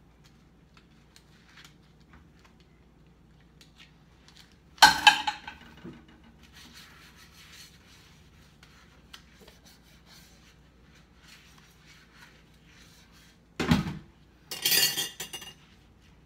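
Dishes and metal utensils being washed by hand in a sink: quiet rubbing and clinking, broken by a loud clatter about five seconds in and two more near the end.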